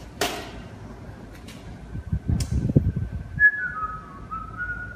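A man whistles a short tune of a few stepping notes in the second half. Before it come a few light clicks and handling knocks as he picks up the slingshot.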